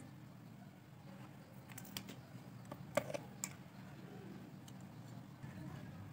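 A few sharp clicks and taps of a hard plastic plug housing being handled and opened, the loudest about three seconds in, over a faint steady low hum.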